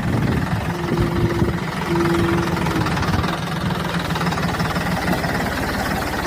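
An engine running steadily with a rapid low chugging. Two short, higher steady tones sound about one and two seconds in.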